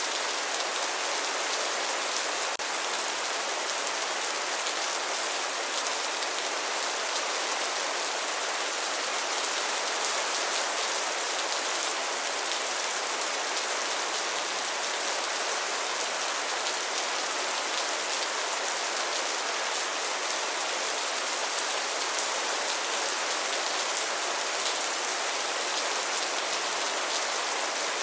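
Steady rain falling and pattering on a surface, an even hiss with fine drop ticks and no thunder.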